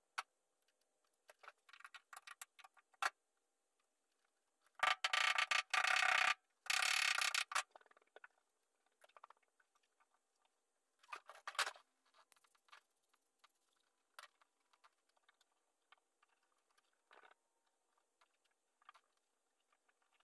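Cloth headliner fabric being handled and pressed against the car's sheet-metal body: rustling and scraping, with two louder stretches of rustling about five and seven seconds in, a shorter one near the middle, and scattered small clicks.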